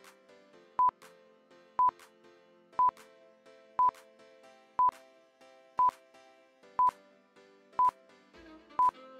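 Quiz countdown timer sound effect: a short, high electronic beep once a second, about nine times, over soft background music.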